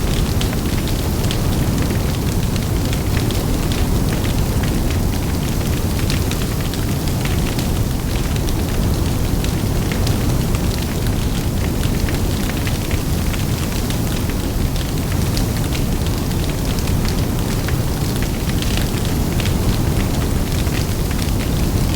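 Large bonfire burning, with a steady low rumble of flames and frequent sharp crackles and pops throughout.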